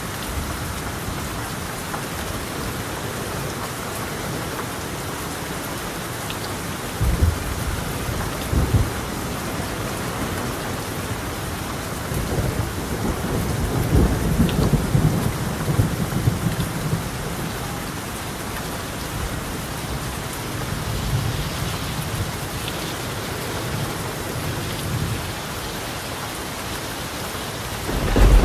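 Steady heavy rain on a tiled roof, with thunder rolling over it. There are two short low claps about seven and nine seconds in, a longer rumble from about twelve to seventeen seconds, and a sudden loud crack right at the end.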